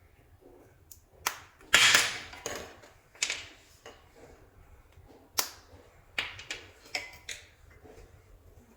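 Soft clay being squeezed and kneaded by hand, giving a series of sharp sticky pops and crackles. The longest and loudest crackle comes just under two seconds in, with a few more single pops between about five and seven seconds in.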